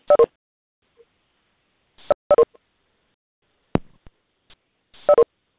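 Short electronic beep tones from a WebEx teleconference line, heard at telephone sound quality. They come singly and in quick pairs, a pair at the start, more around two seconds in, one near four seconds and a pair near the end, with silence between.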